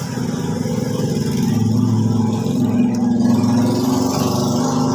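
Small engine running steadily, growing louder toward the middle and easing off near the end.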